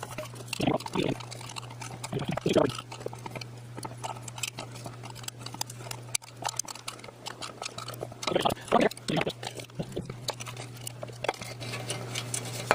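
Small irregular clicks, scrapes and rattles of hands and a tool working a neon indicator bulb loose from a Heathkit IM-13 voltmeter chassis, with a few louder scraping bursts, over a steady low hum.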